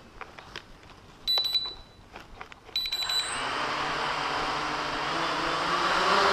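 Two short electronic beeps, then the JJRC X1 quadcopter's brushless motors spin up about three seconds in. They settle into a steady buzzing run whose pitch creeps slowly upward as the throttle is raised for a hover.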